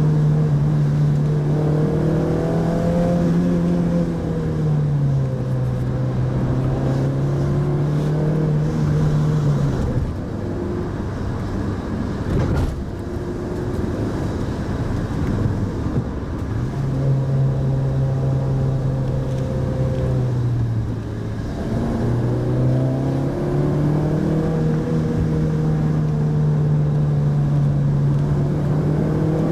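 Mitsubishi Pajero Mini's engine heard from inside the cabin while driving. The engine note steps down about four seconds in and fades out for several seconds around the middle. It then comes back and climbs again toward the end, over steady road noise.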